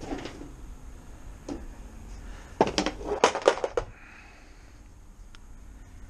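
Hard plastic parts knocking and clattering as they are handled: a couple of single knocks, then a quick run of about ten sharp clicks and knocks about two and a half seconds in.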